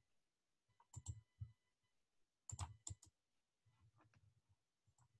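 Near silence broken by a few faint clicks, one small cluster about a second in and another about two and a half seconds in, typical of computer mouse or keyboard clicks while participants are muted in a video call.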